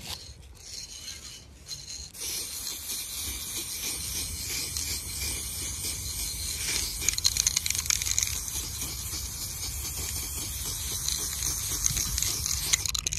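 Aerosol spray-paint can hissing as metallic silver paint is sprayed onto a wall. It comes as a few short bursts at first, then one continuous spray of about ten seconds that cuts off just before the end.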